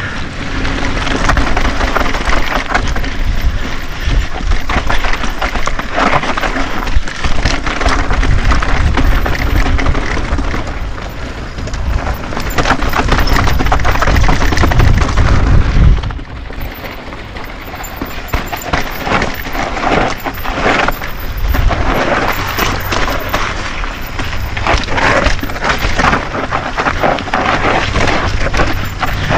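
Wind buffeting the action camera's microphone on a fast mountain-bike descent, mixed with the tyres crunching and the YT Decoy Core 3's chain and frame rattling over loose rock. The low wind rumble drops off sharply about halfway through, while the rattling over the rocks goes on.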